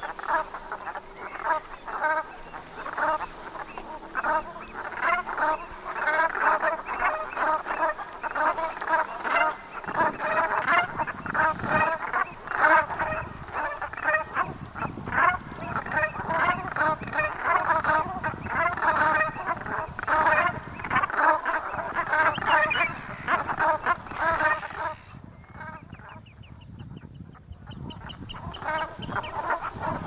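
A flock of brent geese calling, many short honking calls overlapping without a break. A low rushing noise joins about a third of the way in. Near the end the calling thins for a few seconds and a high, rapid trill is heard.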